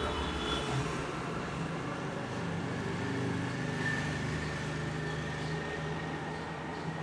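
A steady low hum and rumble of background noise.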